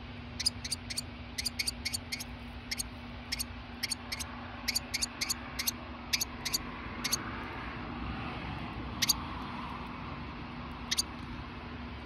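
Sharp, very short chip notes from an adult northern cardinal, coming two or three a second for about six seconds and then twice more, spaced out, near the end.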